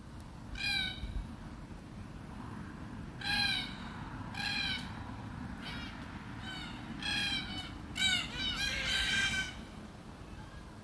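Red-tailed black cockatoo (northern subspecies, Calyptorhynchus banksii banksii) giving a series of short, grating calls. The calls come in an uneven run and crowd together, overlapping, towards the end.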